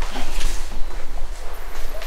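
Footsteps and shuffling on a hard floor, a few short knocks over a steady low rumble.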